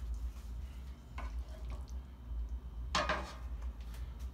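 Kitchen cookware being handled: a couple of light knocks about a second in, then a louder clatter about three seconds in, over a low steady hum.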